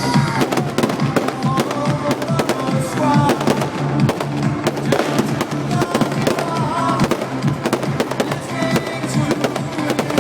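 Fireworks going off in rapid, overlapping bangs and crackles, mixed with the music played along with the display.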